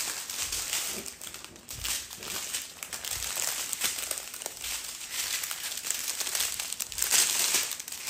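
Small clear plastic zip-lock bags of diamond-painting drills crinkling and rustling as they are handled and spread out, loudest near the end.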